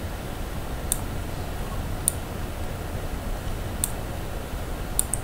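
Computer mouse clicking about five times, a second or so apart, the last two in quick succession near the end, over a steady low hum.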